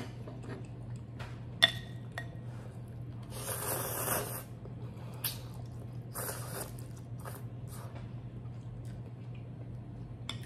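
Someone slurping ramen noodles: a long airy slurp a little over three seconds in and a shorter one about six seconds in. A sharp utensil click comes near the start, with small ticks of chopsticks and spoon in between.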